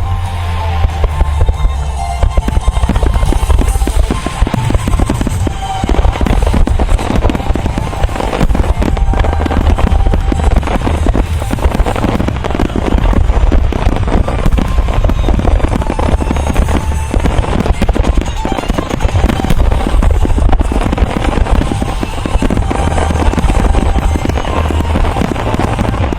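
A music starmine firing: many fireworks shells bursting in quick succession, dense and continuous, over music played through the show's loudspeakers.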